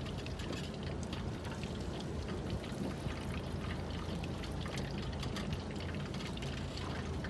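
Fish frying in oil in a pan on a portable butane camp stove: a steady sizzling hiss with fine crackles.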